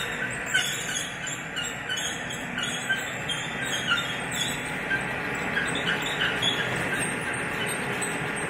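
Marvel MK-1 vertical band saw running, with a short high squeak repeating about twice a second over a steady mechanical noise; the squeaks grow fainter in the second half.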